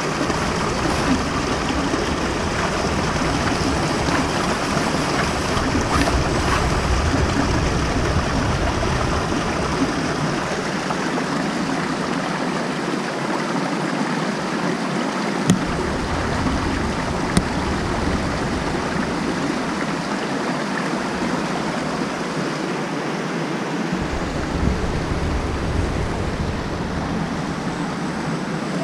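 Creek water rushing steadily over rocks. A low rumble comes and goes underneath it.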